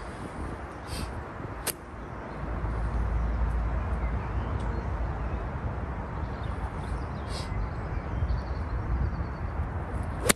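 Steady outdoor wind rumble on the microphone, thickening about two seconds in, ending with the sharp click of a golf iron striking the ball off the fairway grass.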